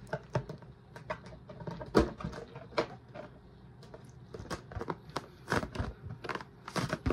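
Rubber balloon being blown up and handled at its neck: a string of short irregular squeaks, rubs and clicks of latex and fingers, the loudest about two seconds in and a few longer squeaks near the end.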